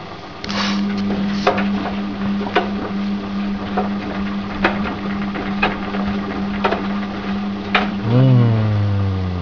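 Washing machine running with a load of toys: a steady motor hum, with something in the tumbling load knocking against the drum about once a second.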